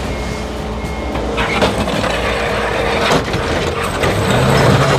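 A dumper's engine running as it tips sand and aggregate from its bucket into a concrete block plant's hopper, with the pour rattling and clattering a couple of times in the middle. The engine's low drone strengthens near the end.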